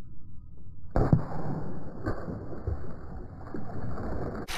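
A small channel catfish thrown back into the river and splashing down: a muffled rush of noise that sets in sharply about a second in.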